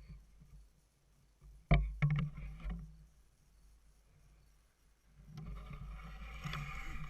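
A compound bow shot: a sharp crack as the string is released about two seconds in, followed by about a second of buzzing vibration from the string and limbs. In the last couple of seconds, a longer scraping, rustling sound builds up.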